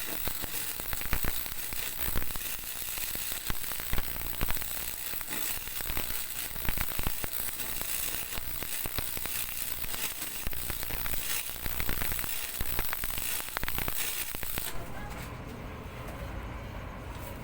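Arc welding: the arc crackles and sizzles steadily with many small pops, then stops about fifteen seconds in, leaving only a low hum.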